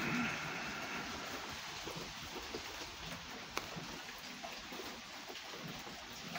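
Steady rain falling and pattering on a wet wooden tabletop. For about the first second a steady two-pitched tone sounds over it, and there is one sharp click about three and a half seconds in.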